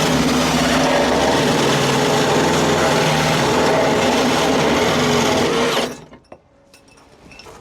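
Electric drill running steadily under load, cutting a hole through the car's body panel for the snorkel, then stopping suddenly about six seconds in, followed by a few faint clicks.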